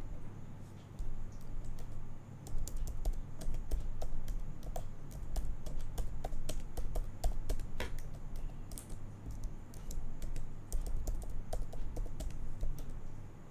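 Typing on a computer keyboard: quick, irregular key clicks in uneven runs, over a steady low hum.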